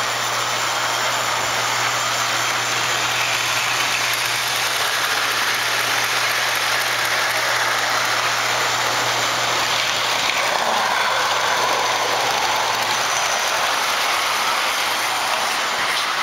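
O-gauge electric model trains running on three-rail track: a steady rolling whir of wheels and motors, with a low hum underneath that fades out about three quarters of the way through.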